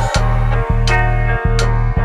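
Background music with a steady beat: a sustained bass line that briefly dips in rhythm, with sharp percussion strikes about every 0.7 seconds.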